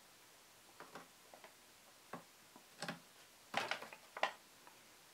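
Faint, irregular small clicks and scrapes of a plastic wire connector being worked loose from its socket on a circuit board with a small screwdriver, the loudest few coming close together near the end.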